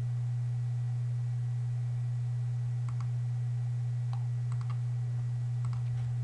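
Steady low hum with a few faint, scattered clicks of a computer keyboard and mouse as code is edited.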